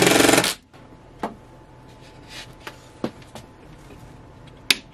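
Ridgid cordless drill running briefly, as if driving a screw, stopping about half a second in. A few light knocks on the wooden cabinet follow, then a sharp click near the end.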